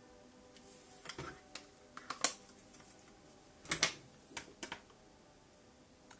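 A scatter of sharp clicks and light knocks from small objects handled close to the microphone. They come between about one and five seconds in, the loudest a little after two seconds and a close pair near four seconds.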